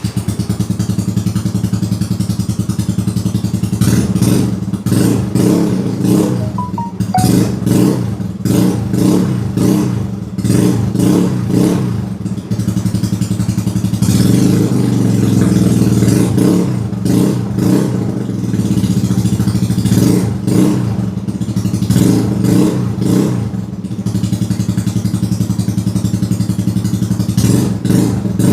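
A Yamaha Mio Sporty scooter's single-cylinder four-stroke engine, fitted with an aftermarket CHA Rama 9 exhaust, idling and being revved in repeated short throttle blips. A longer rev is held about halfway through.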